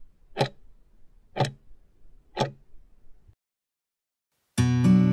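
Countdown clock ticking once a second, three sharp ticks, as the timer runs out its last seconds. After a brief silence, music starts near the end.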